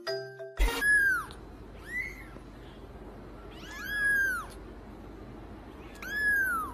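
A kitten mewing four times: thin, high calls that rise and then fall in pitch, the third and fourth longer and drawn out. A few notes of mallet-percussion music end just before the first mew.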